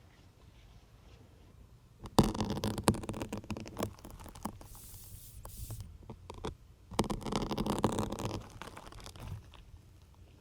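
Syringes pushed into a soft sponge, making rough squeaky crunching with sharp clicks. It comes in two bouts, about two seconds in and again about seven seconds in.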